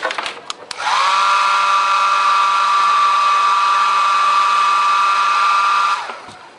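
A few light clicks, then a small handheld hair dryer switched on about a second in. Its fan whine rises quickly and then holds at a steady high pitch over a rush of air, and it is switched off near the end.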